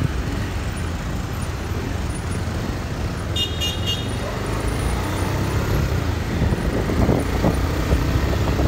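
Motorcycle engine running with road and traffic noise as the bike rides along, a steady low rumble. A vehicle horn toots briefly about three and a half seconds in.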